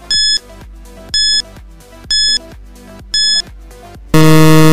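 Quiz countdown timer sound effect: four short, high electronic beeps, one a second, then a loud, low buzzer a little after four seconds in as the count reaches zero, marking time up. Quiet background music plays underneath.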